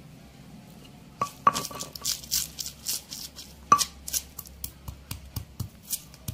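Stone pestle (ulekan) pounding shallots, garlic, bird's-eye chillies and coriander seed in a stone mortar (cobek). Sharp stone-on-stone knocks begin about a second in and come roughly twice a second, some with a short ringing clink.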